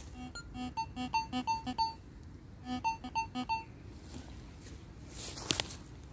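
Metal detector giving short electronic beeps of varying pitch, in two bursts as the search coil is swept over a buried metal target. Near the end there is a rustle and a sharp knock.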